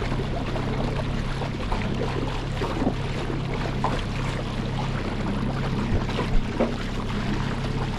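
Small boat's outboard motor running steadily, a low hum over a rush of wind and water. A couple of light knocks come about six seconds in.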